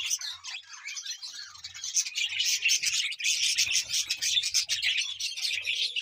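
A large flock of budgerigars chattering and chirping all at once, the dense twittering growing louder about two seconds in.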